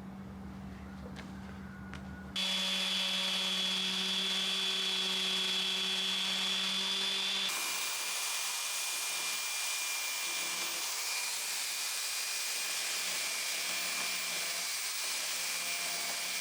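Handheld electric power tool sanding fiberglass, cutting a bevel around a hole for a patch repair. A lower steady hum gives way about two seconds in to the loud whine and rasp of the tool, whose tone changes abruptly about halfway through.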